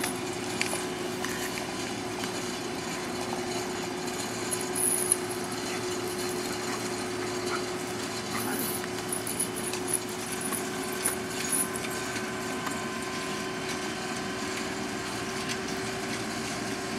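Tractor engine running steadily under load as it tows a mobile home, with a few short sharp knocks.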